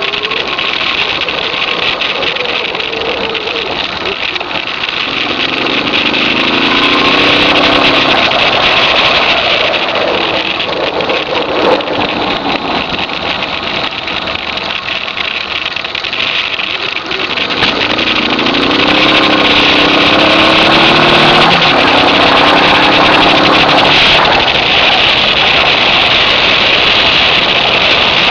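Suzuki DR650's single-cylinder four-stroke engine accelerating hard, its note rising in short steps through the gears twice: about five seconds in and again after about seventeen seconds. Heavy wind noise on the microphone runs under it.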